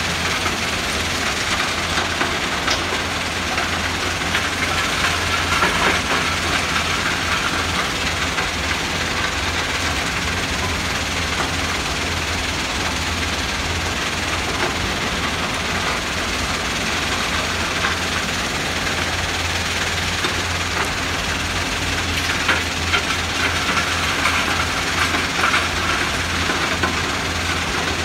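Tata Hitachi and Kobelco excavators' diesel engines and a stone crushing plant running together: a steady heavy hum with rocks rattling and clattering. The clatter swells about six seconds in and again over the last several seconds.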